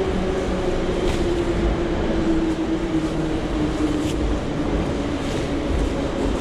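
Subway train noise heard from inside a metro car: a steady rumble with a motor hum that slides slowly down in pitch. A few soft handling knocks come as the camera is fumbled.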